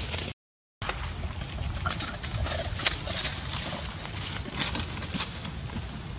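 Dry leaf litter rustling and crackling in short bursts as macaques shift about on the ground, with a couple of short calls in the background. The sound drops out for half a second near the start at an edit.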